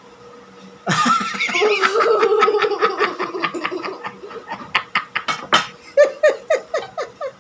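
A young girl laughing hard. It breaks out about a second in and turns into a string of short, quick bursts toward the end.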